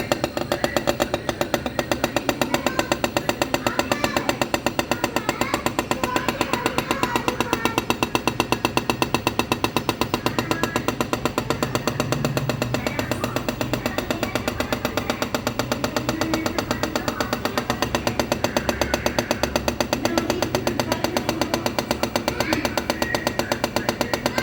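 Refrigerator compressor knocking in a fast, even rhythm, about four knocks a second, without let-up: the sign of a faulty compressor.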